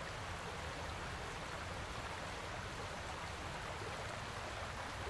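Steady rushing noise like flowing water, with a low hum beneath it.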